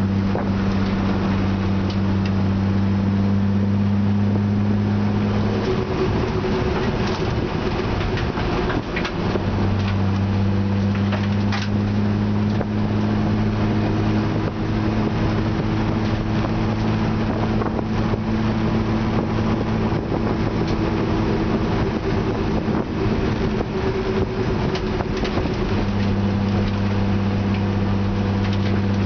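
Cabin sound of a Spec E30 BMW race car at speed on track: its straight-six engine running at a steady pitch over wind noise. The engine tone breaks off for about three seconds around six seconds in, then comes back steady, and shifts again a few seconds before the end.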